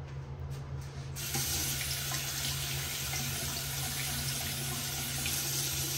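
Water running from a sink tap: it is turned on about a second in and then flows steadily.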